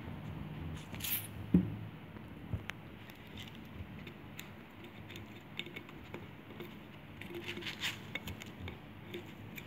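Light paper rustling and scattered small taps as a glued strip of paper is pressed and wrapped around a plastic bottle's neck, with one sharper click about a second and a half in.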